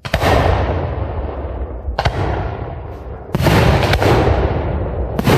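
Aerial firework shells bursting one after another, about six loud reports with the heaviest at the start and near the end, each trailing off in a long rolling echo.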